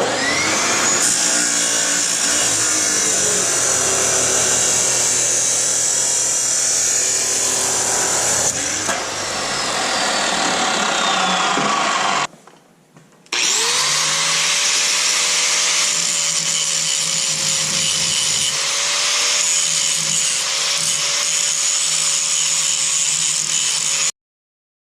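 Electric angle grinder spinning up with a rising whine and grinding on steel hydraulic line parts to prepare them for welding. It winds down with a falling whine after about twelve seconds, starts again about a second later, and runs until it stops near the end.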